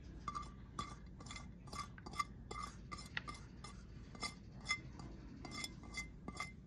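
Small ceramic dish being tapped over a bowl to knock out the last of the minced fresh garlic: a steady run of light clinks, about two to three a second, each with a short ring.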